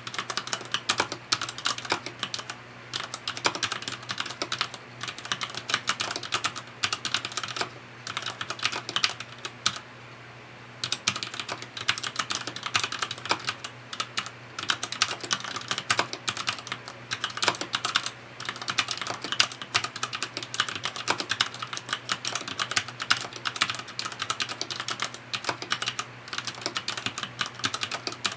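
Typing on a FILCO Majestouch 2 mechanical keyboard with linear Cherry MX Red switches: a rapid, continuous run of keystroke clicks, broken by a few short pauses.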